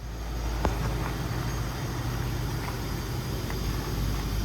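A vehicle engine running steadily with a low hum, with a few faint clicks, the clearest about two-thirds of a second in.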